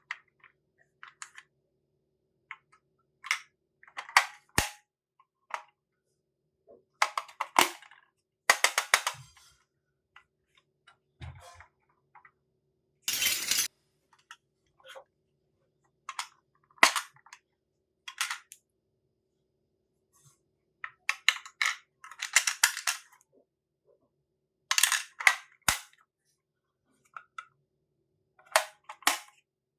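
Small toy kitchen pieces and their packaging being handled: scattered clicks, taps and short rustles, with one longer, louder rustle lasting about a second around the middle.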